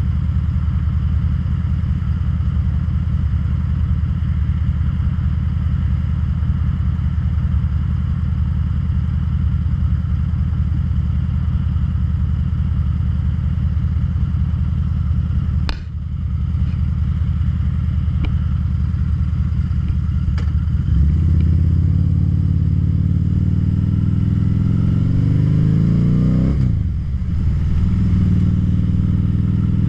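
2013 Harley-Davidson V-Rod Muscle's liquid-cooled V-twin idling steadily at a stop, with a single sharp click partway through. About two-thirds of the way in it revs up as the bike pulls away, rising in pitch, drops briefly at an upshift and climbs again.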